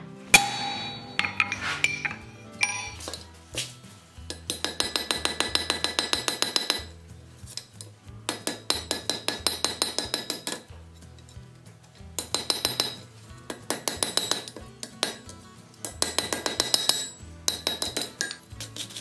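Hand hammer forging hot iron on a steel anvil: runs of fast blows, several a second, each run lasting a second or two with short pauses between, the anvil ringing with each strike.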